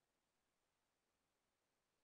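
Near silence: the audio track is essentially empty.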